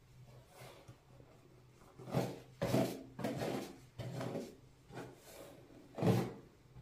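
Hair being straightened with a flat iron: a series of about six short, soft rubbing strokes as the iron clamps and slides down the hair. The strongest strokes come about two and three seconds in and again about six seconds in.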